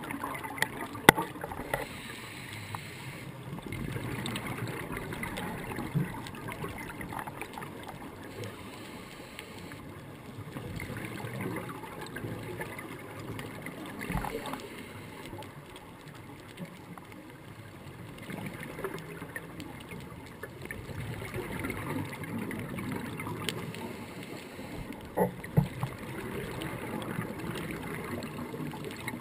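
Underwater sound through a dive camera's housing: scuba regulator exhaust bubbles gurgling, swelling and fading every few seconds with the diver's breathing. Sharp clicks or knocks come now and then, the loudest about a second in and two close together near the end.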